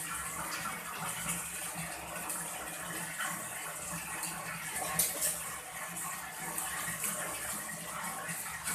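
Water running and splashing as fish are washed and cleaned, with one sharp knock about five seconds in.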